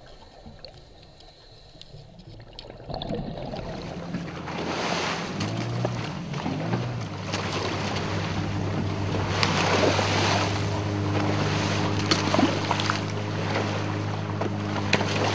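A wooden fishing pirogue under way at sea: water rushing along the hull and wind on the microphone, joined from about five seconds in by a boat motor's steady hum. The first few seconds are faint.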